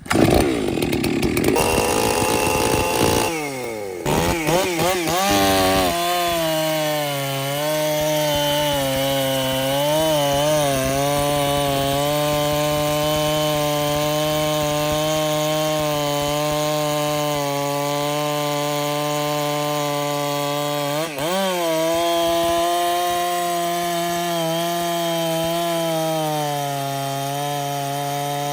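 Gas chainsaw running at full throttle through a long cut, its engine note held steady under load. The note wavers after a rough first few seconds, then dips briefly twice.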